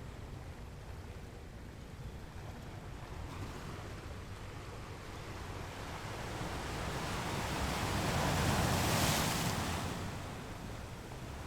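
Ocean waves washing against rocks: a steady wash of surf, with one wave building to a crash about nine seconds in and then draining away.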